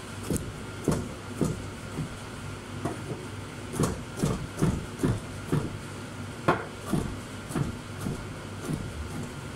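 Chef's knife chopping baby corn on a plastic cutting board: a run of knife strikes against the board, about two a second, over a steady background hum.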